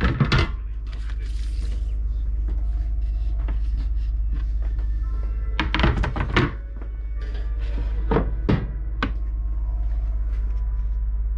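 Knocks and thunks of solid-surface countertop covers being handled and lifted off a gas cooktop. There is one knock near the start, a cluster of knocks about six seconds in and a few more around eight to nine seconds, over a steady low hum.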